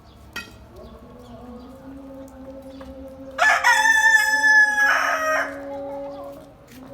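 A rooster crowing once, a loud call about two seconds long starting around three and a half seconds in, over a steady low hum.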